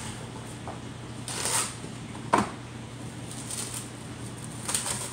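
Plastic cling wrap being pulled from its box and torn off, with a rasp about a second and a half in and a sharp snap about two and a half seconds in, then crinkling near the end as it is stretched over a glass bowl. A steady low hum runs underneath.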